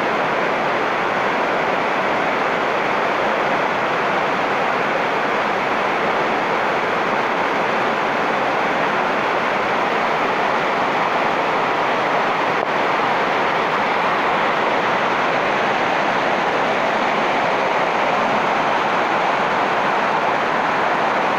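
Heavy rain falling steadily on foliage and wet ground: a loud, even hiss with no breaks.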